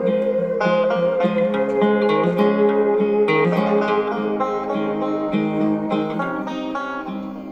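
Instrumental music with plucked notes played through a small homemade PCL82 single-tube amplifier and its little built-in speaker. The volume is turned down gradually near the end.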